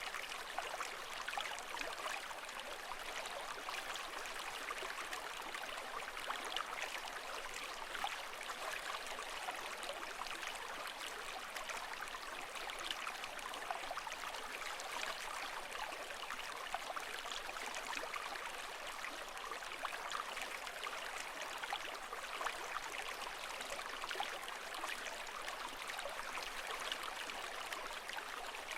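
Running water, a steady splashing and trickling with fine crackles throughout and no rising or falling swells.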